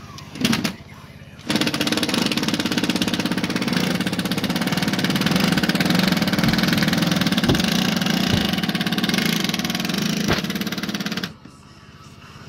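Cordless reciprocating saw cutting through a wooden rafter tail to trim it flush: a short burst about half a second in, then about ten seconds of steady, rapid sawing that stops near the end.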